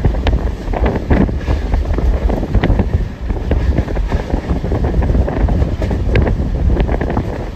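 Heavy wind buffeting the microphone at the open window of a moving train, over the train's low running rumble and clatter.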